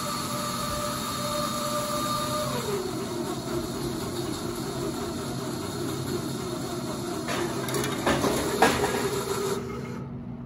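Cleaveland/Price TPC3 motor operators driving 500 kV, 3,000 A disconnect switch blades closed. The motor whine drops lower in pitch about two and a half seconds in, and a few metallic clunks near the end come as the blades seat in the jaws, the last the loudest. A steady low electrical hum runs underneath.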